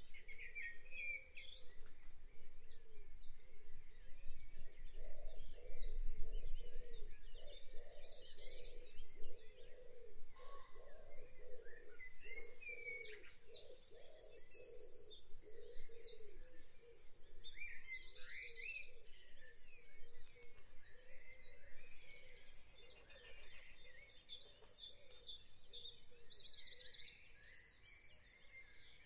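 Several songbirds singing in spring: many short, bright, rapidly repeated trills and chirps, one after another, over a faint low background hum.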